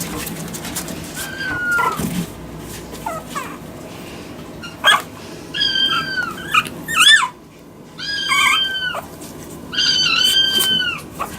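Maltese puppy whining: a series of high, drawn-out whimpers, each holding its pitch and dropping off at the end, the longest near the end.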